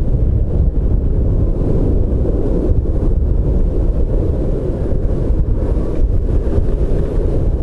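Jet engines of a twin-engine widebody airliner at takeoff thrust as it lifts off and climbs away: a steady, low rumble. Gusty wind buffets the microphone over it.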